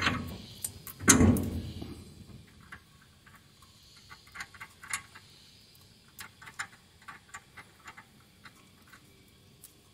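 Metal front-suspension parts of a 1995 Holden Rodeo being handled as the tie rod end's stud is pushed into the steering arm: two loud knocks, one right at the start and one about a second in with a short low ring. After that comes a run of small light clicks from fingers working the castellated nut onto the stud.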